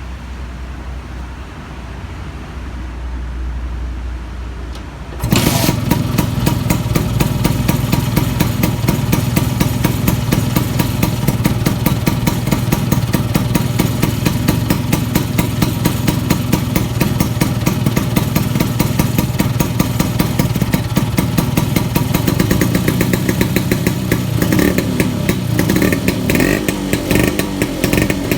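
Vespa Sprint scooter's single-cylinder engine catching about five seconds in, after a low rumble, and then idling through an aftermarket big box exhaust with a rapid, even pulse. The revs rise and fall a few times near the end.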